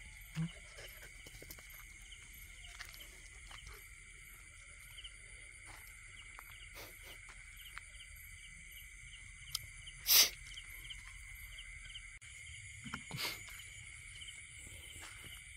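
A chorus of night insects in a flooded field: several steady high trills with evenly repeating chirps. A short low knock comes just after the start, and a sharp loud click, the loudest sound, about ten seconds in, with a smaller one some three seconds later.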